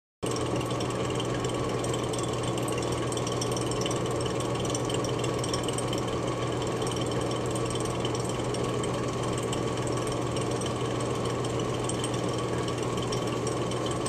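Electric vacuum pump running steadily with a constant motor hum, evacuating a sealed bell jar. The sound cuts in abruptly just after the start.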